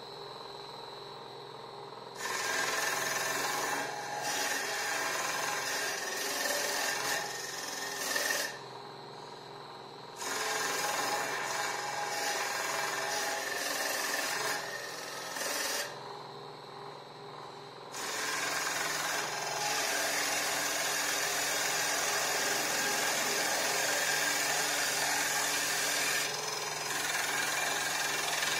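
Single-spindle CNC wood lathe turning a wooden blank: the cutter takes three long cutting passes, each several seconds of loud, even cutting noise, with short gaps between where only the steady hum of the running machine is left.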